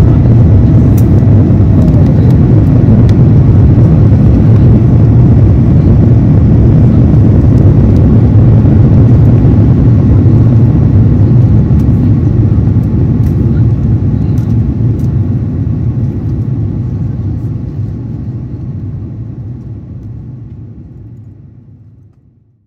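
Steady rumble of engine and airflow noise inside the cabin of an Airbus A350-900 in flight. It fades out gradually over the last ten seconds.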